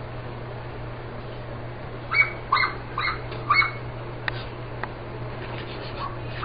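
Puppy giving four short, high yips in quick succession about two seconds in.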